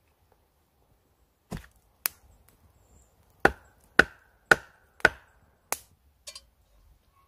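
Wooden baton knocking on a wooden stake, driving it into the ground: seven sharp strikes, the middle four evenly spaced about half a second apart, then a fainter knock near the end.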